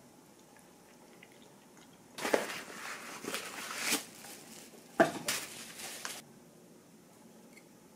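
Packaging being handled during an unboxing: two spells of crinkly rustling, the second starting with a sharp click.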